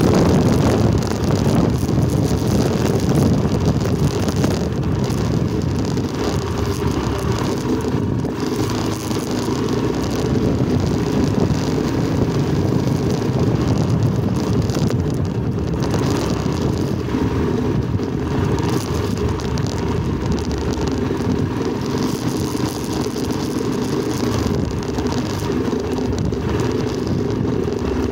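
Steady rumble of a vehicle travelling over a dirt track, with wind buffeting the microphone.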